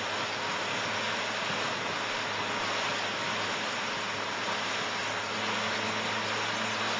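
Fishing boat running at speed: a steady low engine drone under the loud, even rush of churning wake water.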